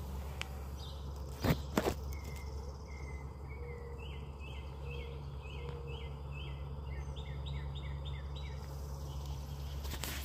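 Two sharp knocks about a second and a half in, then a songbird singing a quick run of short, repeated chirping notes for about six seconds, over a steady low rumble.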